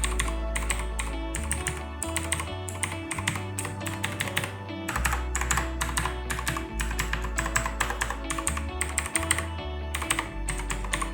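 Typing on a mechanical keyboard with Outemu Blue switches: rapid, irregular clicky key presses throughout. Background music with a steady bass line plays under them.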